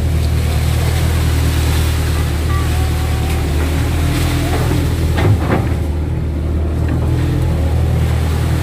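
Kato crawler excavator's diesel engine running steadily with a low drone, with a short crunching crackle about five seconds in.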